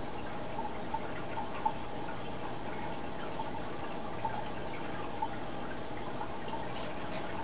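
Aquarium filter water trickling steadily, with faint scattered drips and small ticks.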